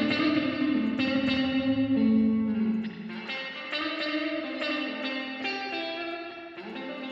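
Recorded electric guitar blues solo played back through Logic Pro X's Pedalboard effects chain: overdrive, chorus, echo and spring reverb pedals. It is a line of sustained single notes with a bend about halfway through.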